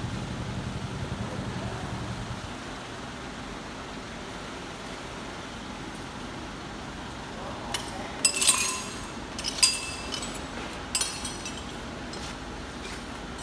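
A motor runs for the first couple of seconds, then fades out. A few seconds later comes a short cluster of sharp metallic clinks and clanks with some ringing, as hard metal objects are knocked together or set down.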